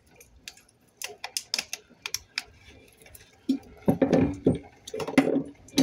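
Hands handling cylindrical battery cells and wires on a wooden board: a run of light, scattered clicks and taps, then a denser clatter of knocks from about three and a half seconds in.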